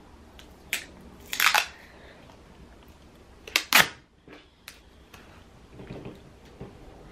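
Wide clear tape being pulled off its roll in short, loud rips: a quick one about a second in, a longer one just after, and two more close together midway, followed by softer handling noise.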